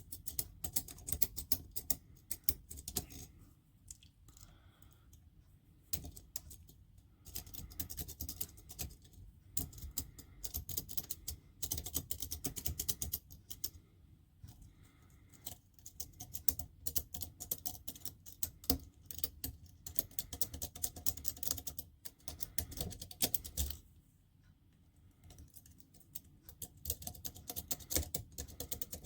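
City rake being worked rapidly in and out over the pin tumblers of a Perry gate lock held under light tension: a dense run of fast metallic clicking and scraping. It eases off briefly about four seconds in and again about twenty-four seconds in.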